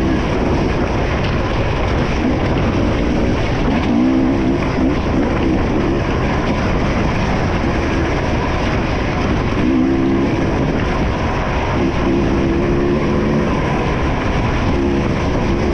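Enduro dirt bike's engine running under way, heard from onboard the moving bike, over a constant rush of wind and track noise. Its pitched note comes through in short spells as the throttle is worked.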